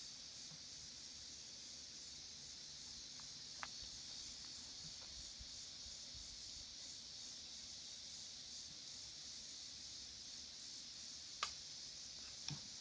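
Blow torch flame hissing steadily as it heats steel, with one sharp click about eleven seconds in.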